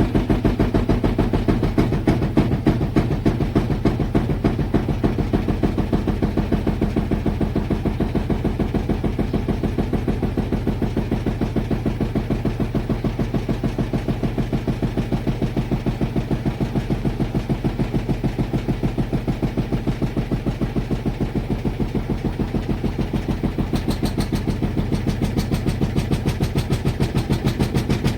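Front-load washing machine running: a steady low mechanical hum with a fast, even pulse throughout.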